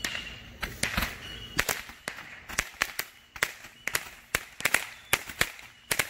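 Ground fountain firework going off, its sparks throwing a run of sharp crackling pops, a few a second and irregularly spaced.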